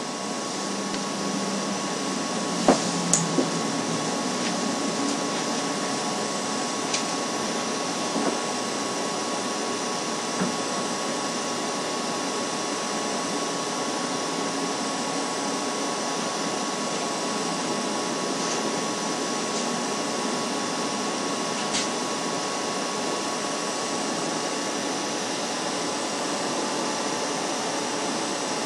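Steady rushing noise on a nest camera's outdoor microphone, with a thin steady hum behind it. A few faint clicks come through about three seconds in, again near eight seconds and once more past twenty seconds.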